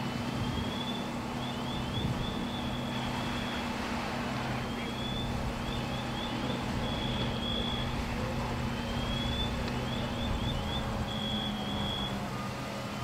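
Fire engine running its pump, a steady rumble and hum while its deck gun sprays water. Over it, a high repeating pattern of a held tone, a rising glide and a quick run of chirps comes round about every four and a half seconds.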